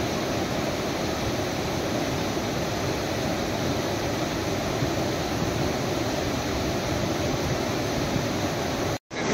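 Steady rush of fast-flowing floodwater churning around and past the stranded truck. It breaks off for a moment near the end.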